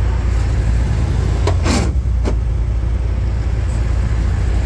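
Volkswagen Kubelwagen's air-cooled flat-four engine running steadily as the car drives along, heard from the open cabin. A few short knocks and a brief falling rattle come through about two seconds in.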